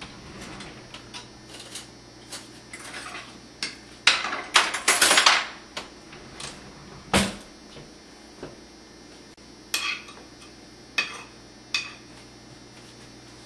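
Metal spoons scraping and clinking against a glass baking dish and mixing bowl as crumbly topping is scooped and dropped onto peaches. There is a dense run of scraping about four seconds in, then a few sharp single clinks.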